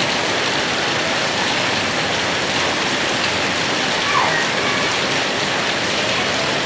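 Heavy rain pouring down in a rainstorm: a loud, steady, even hiss of rain on surfaces.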